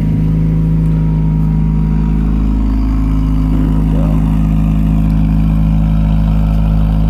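1996 Honda Prelude's non-VTEC H23 four-cylinder idling steadily after a cold start, heard through a cheap aftermarket eBay exhaust with a silencer fitted.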